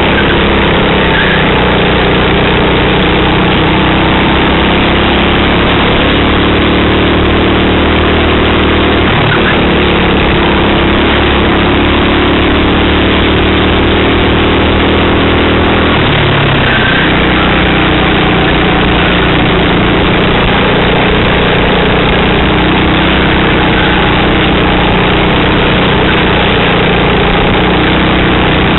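Racing kart engine heard onboard at full race pace: its pitch climbs steadily along the straights, then falls away sharply as the driver lifts and brakes for corners, about nine seconds in and again about sixteen seconds in.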